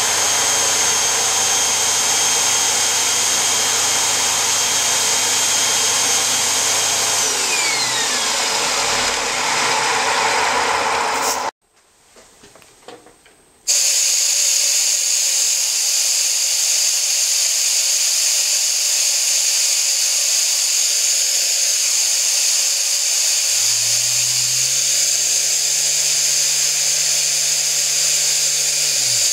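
Small model Tesla disk turbine spinning fast: a steady high whine over the rush of its driving air, its pitch falling away about seven seconds in as it slows. After a brief near-silence it runs again with a steady high air hiss, and a low hum joins near the end.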